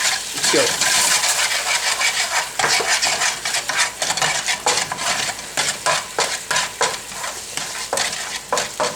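Sauce sizzling in a hot pan with oil, garlic and tomato while being stirred, the utensil scraping and clicking against the pan many times at an irregular pace; the sauce is being cooked down to thicken.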